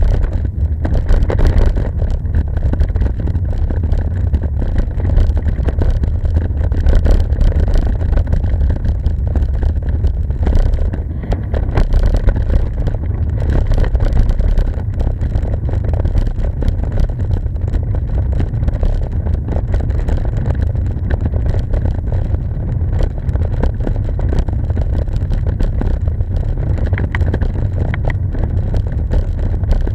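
Steady low rumble of wind buffeting the microphone of a camera riding along on a bicycle.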